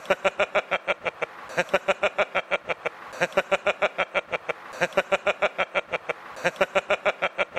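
A man laughing in repeated bouts of quick, even "ha" pulses, about seven a second. There are five bouts of about a second and a half each, with short breaths between.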